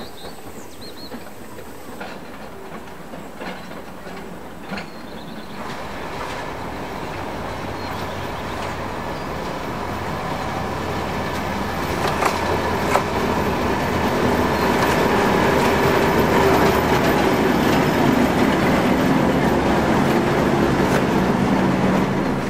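A diesel-hauled passenger train approaching and passing. The locomotive's engine drone grows steadily louder from about six seconds in, and wheels clatter over the rail joints as the coaches go by.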